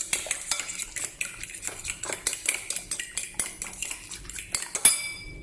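Raw egg being beaten in a bowl, the utensil clinking quickly and repeatedly against the bowl's side, with one louder clink near the end.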